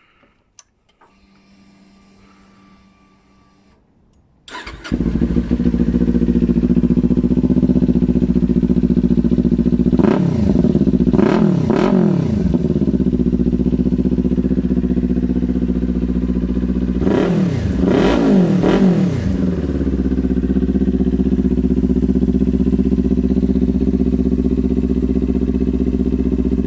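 Kawasaki Ninja 400's parallel-twin engine, breathing through a cheap Chinese aftermarket slip-on silencer, starts about four and a half seconds in and settles to a steady idle. It is blipped twice, each time in a quick set of about three short revs, then idles on.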